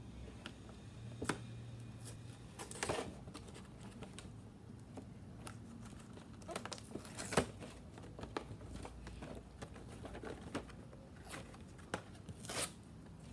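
Cardboard box with a clear plastic window, holding a motorized toy train, being gripped, shifted and lifted: scattered crinkles, taps and clicks of the packaging, with a few louder knocks.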